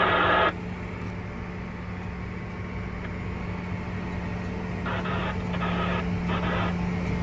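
Farm tractor engine running steadily, a constant low hum. Twice, at the very start and again about five seconds in, a louder, thinner sound cuts in over it for a second or two.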